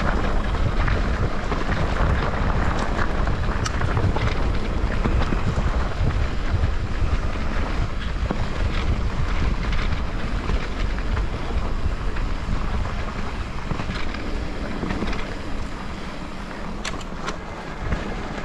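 Wind buffeting the microphone and a mountain bike's tyres rumbling over a dirt trail, with scattered clicks and rattles from the bike. The noise eases a little over the last couple of seconds.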